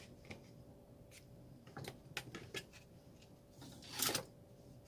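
Small clicks and taps of objects being handled on a workbench, several in a quick cluster about two seconds in, then one brief, louder rasp about four seconds in.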